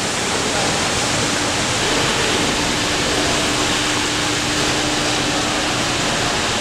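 Steady rushing and splashing of churning water at the surface of a large aquarium tank, with a faint steady hum through the middle.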